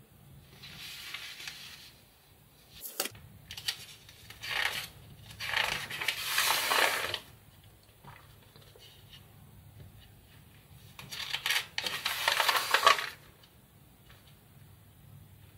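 Glossy magazine pages being handled and turned: rustling page turns, the loudest about six and twelve seconds in, with a few light paper crinkles and taps between.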